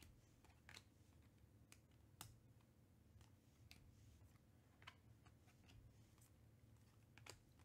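Faint, irregular clicks of Panini Prizm baseball cards being flicked one at a time from the front of a hand-held stack to the back, over near silence.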